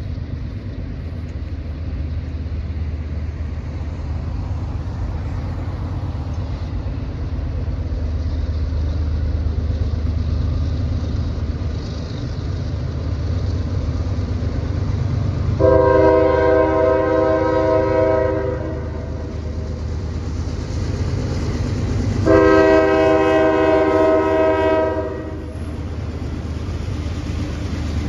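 Diesel locomotives of an approaching CSX double-stack freight train rumbling, steadily growing louder. Past the middle the lead locomotive's air horn sounds two long blasts of about three seconds each, several notes sounding together, and a third blast begins right at the end.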